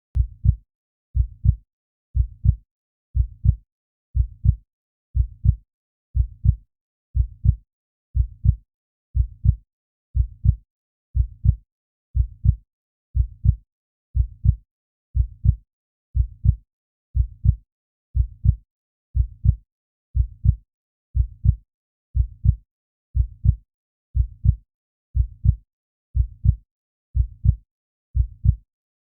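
Slow, steady heartbeat: a low double thump, lub-dub, about once a second.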